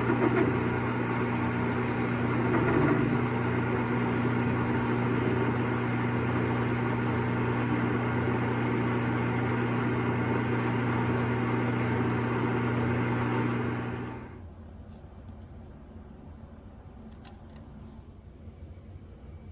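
Small hobby lathe running steadily with a constant hum, then switched off about fourteen seconds in and winding down quickly, leaving only a few faint clicks.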